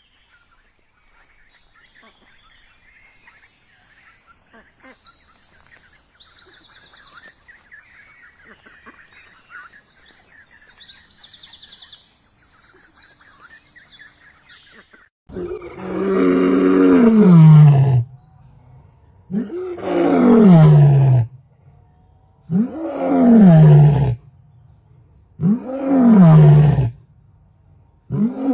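Faint high chirping, then from about halfway through a large animal calls loudly five times, about three seconds apart, each call drawn out for about two seconds and falling in pitch.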